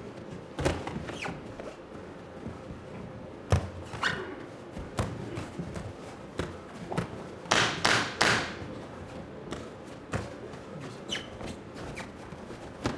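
Boxing gloves landing in an exchange of punches: scattered sharp thuds, with a quick run of three a little past the middle.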